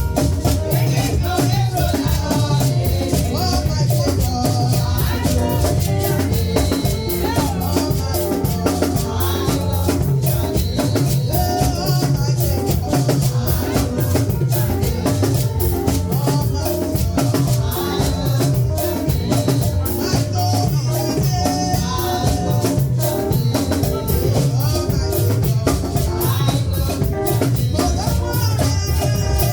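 Upbeat church band music: a fast, steady shaker rattle over drums and a moving bass line, with no clear singing.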